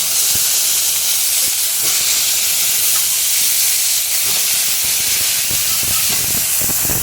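Brinjal (eggplant) pieces frying in hot oil in a kadai: a loud, steady sizzle that starts suddenly as they go in, with a few low knocks near the end.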